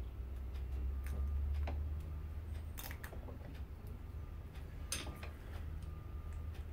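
Scattered sharp clicks and light scrapes of hand tools working at a varnish-stuck electric lawnmower motor during teardown, over a steady low hum; the sharpest clicks come about three and five seconds in.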